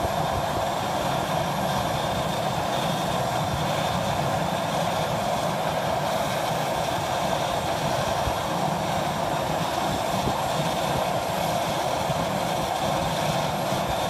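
Thrush 510G agricultural plane's GE H80 turboprop running steadily on the ground while its hopper is loaded: a continuous, even engine noise with no change.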